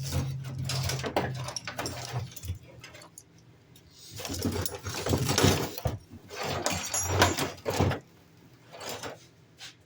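Clattering and rustling handling noise, objects being moved and knocked about, in two stretches: one at the start lasting about three seconds, another from about four to eight seconds in.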